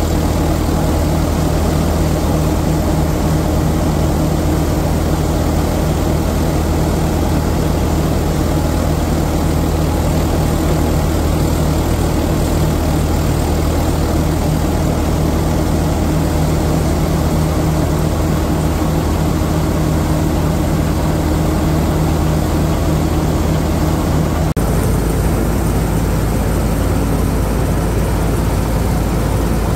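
Swaraj 855 FE tractor's three-cylinder diesel driving a multi-crop thresher through its PTO, tractor and threshing drum running together in a steady loud drone as wheat is fed in. The pitch of the drone shifts abruptly near the end.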